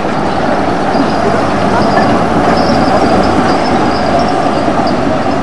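Düwag articulated tram rolling past on street track: a steady rumble of wheels on rails, with a faint high wheel squeal over most of it.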